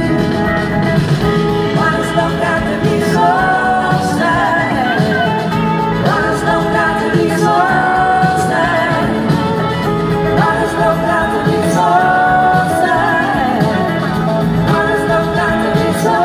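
Live blues-rock band playing: a woman sings lead over electric guitars and drums.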